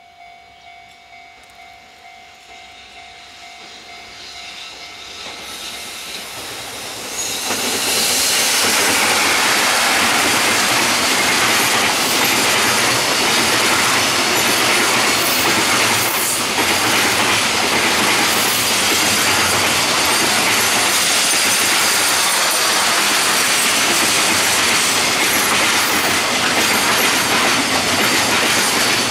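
JR Freight EF65 electric locomotive (EF65-1087) approaching and passing close by with a long container freight train. The sound grows over the first several seconds, jumps loud about seven seconds in as the locomotive reaches the camera, then holds as a steady rumble and clatter of the container wagons' wheels on the rails.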